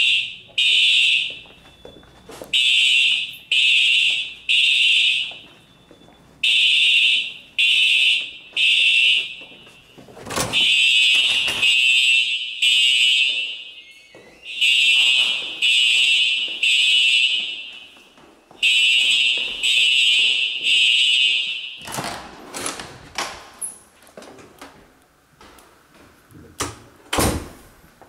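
Simplex TrueAlert fire alarm horns sounding in the temporal-three evacuation pattern: groups of three short horn blasts with a pause between each group. The horns stop about 22 seconds in, followed by a few sharp knocks and thuds.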